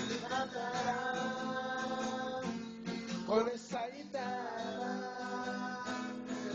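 Acoustic guitar strummed while a voice sings along in long, wavering held notes.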